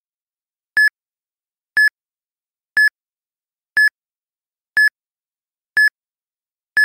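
Countdown timer sound effect: short, identical high electronic beeps, one each second, about seven in a row, marking the seconds running down.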